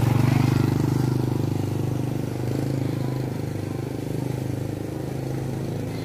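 A motorcycle engine running close by, a steady low putter that gets slightly quieter over the seconds.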